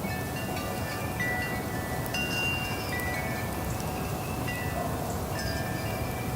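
Wind chimes ringing in a breeze: scattered strikes of clear, high metal tones that overlap and ring on, with a low steady rush of wind underneath.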